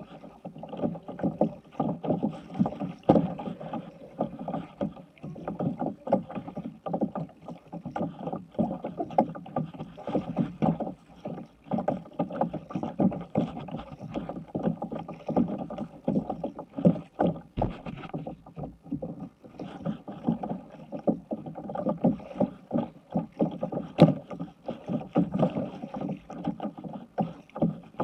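Kayak paddling on choppy water: the paddle blades dip and splash while small waves slap irregularly against the hull. There is one sharp knock near the end.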